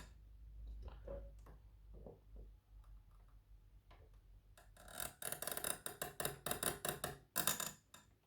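Small tool clicks and taps on a circuit board: scattered faint ticks, then a quick run of sharp clicking from about five seconds in until near the end, as a stuck old coin battery is worked loose while its legs are heated.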